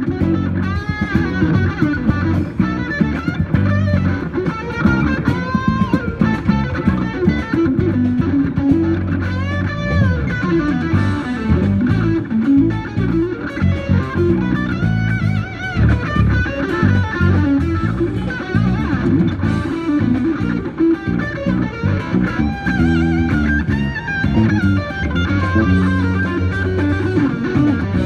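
Electric guitar played lead through a DV Mark amplifier rig: fast melodic lines with string bends and vibrato over a steady, busy low end.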